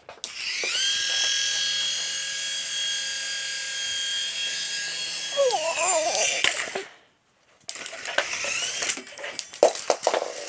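Copter ball toy's small electric motor and propeller spinning up into a high, steady whine, then winding down about two-thirds of the way through. After a brief gap the whine spins up again, with scattered knocks as the toy hits things.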